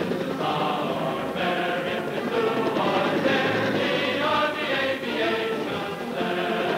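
Soundtrack music with a choir singing held notes that shift from chord to chord.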